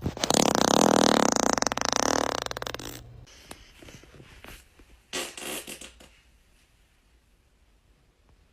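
A person passing gas: one long, loud fart of about three seconds, a rapid flutter that fades toward its end. A brief, quieter sound follows about five seconds in.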